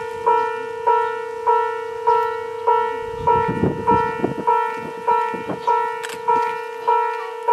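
Railroad level-crossing warning bell ringing in a steady, even rhythm, about one and a half strikes a second, each strike ringing and fading before the next: the crossing's alarm for an approaching train.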